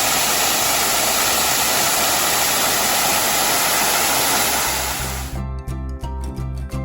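Steady rush of falling water from a low-flow waterfall, which cuts off abruptly about five seconds in and gives way to background music with held notes.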